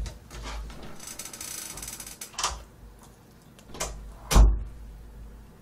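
Scattered clicks and knocks of chopsticks against a plastic plate as someone eats, with the loudest knock about four seconds in.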